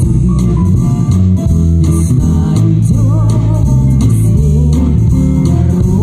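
Live band playing a song: electric bass guitar, electric guitar and drum kit, with a woman singing into a microphone over them. The bass line is the most prominent, and the voice wavers on a held note about halfway through.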